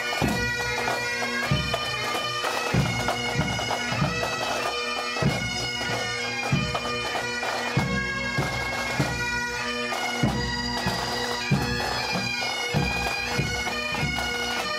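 Pipe band playing: bagpipes carry a tune over their steady drones, with drums beating time about once or twice a second.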